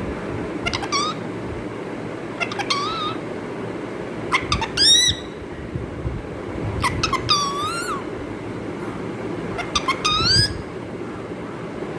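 Pet parrot calling five times, each call a few quick clicks followed by a short pitched note that glides up and then down.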